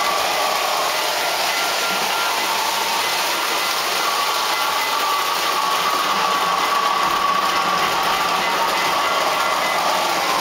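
Lionel model trains running on the layout's track: a steady whir of the electric motors and wheels, with a faint whine that wavers in pitch.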